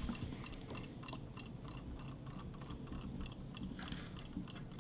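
Battery-powered robotic Dory toy fish swimming in water, its tail mechanism making a rapid run of faint, irregular ticks.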